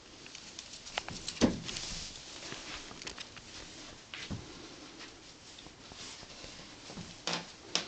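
Irregular taps and thumps of a cat's paws batting a toy mouse across a wooden floor and rug, the loudest thump about a second and a half in.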